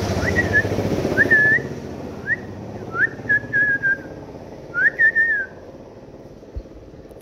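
Young puppies whining: about six short, high-pitched whimpers in the first five and a half seconds, each rising and then holding with a slight waver, some longer than others. A low background rumble sits under the first second and a half.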